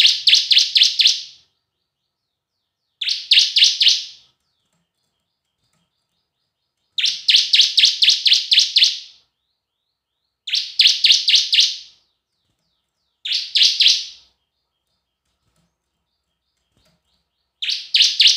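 Bar-winged prinia (ciblek) singing: short bursts of rapid, sharp repeated notes, about five a second, each burst lasting one to two seconds and coming every three to four seconds, six bursts in all.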